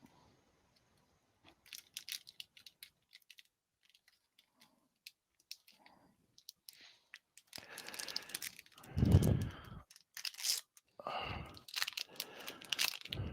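A trading-card pack's wrapper being torn open and crinkled. Scattered crackles come first, then louder ripping and rustling in the second half.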